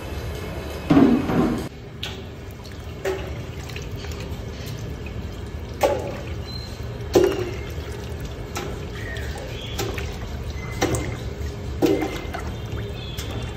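Raw chicken pieces being dropped into a large empty aluminium biryani pot. Each lands with a wet thud and a brief metallic ring, about six times, over a steady low rumble.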